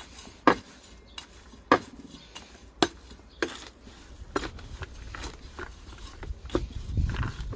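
Hard clinks of a utensil knocking against a container, about seven sharp strikes spaced roughly a second apart, as food scraps are worked for compost. A low rumble of handling builds near the end.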